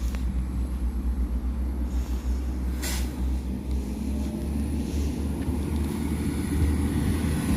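NI Railways Class 4000 diesel multiple unit pulling away from the platform: a steady low engine rumble that builds slightly toward the end, with a single sharp click about three seconds in.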